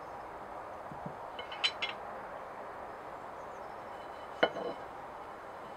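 Hand-forged steel clamp bars clinking against each other as they are handled: a few quick light clinks about a second and a half in, then a single louder clink with a softer knock just after it.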